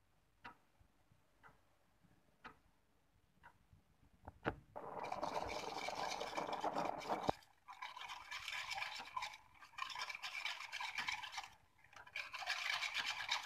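Light taps about once a second as a sieve of flour and cornstarch is tapped over a saucepan of cold milk. Then a hand whisk beats fast against the metal saucepan, with a short pause near the end, mixing the cold base for an egg-free pastry cream.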